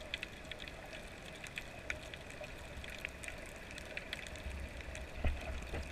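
Underwater ambience: a steady hiss with scattered sharp crackling clicks, and a low rumble with a couple of thumps near the end.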